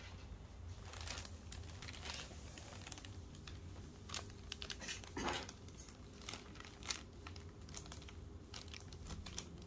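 Clear plastic bag crinkling and rustling as a cat pushes its way inside, a run of short irregular crackles, with louder ones about five and seven seconds in.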